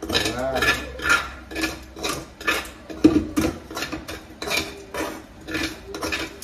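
A utensil scraping concón, the crusted rice, from the bottom of a metal pot in quick repeated strokes, about two a second.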